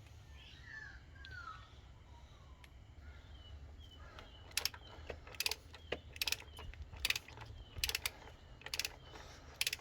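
Ratchet torque wrench being worked back and forth on the oil filter housing cap, its ratchet clicking about once every second as the cap is tightened toward the 25 setting. The clicking starts about four and a half seconds in.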